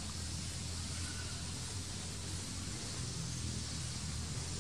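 Steady outdoor background noise: a constant low hum under an even hiss, with no distinct events.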